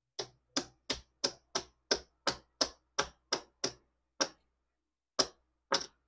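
Casino chips clicking one at a time as they are counted off onto a stack, about three clicks a second for nearly four seconds, then a few slower, scattered clicks.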